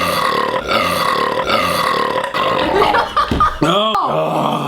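A man burping: one long, drawn-out burp of about three seconds, its pitch slowly sinking, followed near the end by a shorter sound that rises and falls in pitch.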